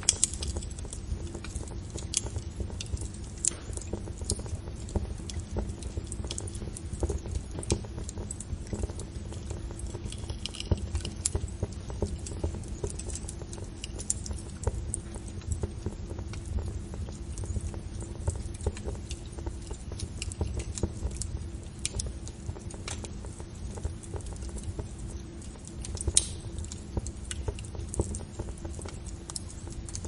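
Campfire burning: wood crackling and popping at irregular intervals over a steady low noise of the flames, with one louder pop late on.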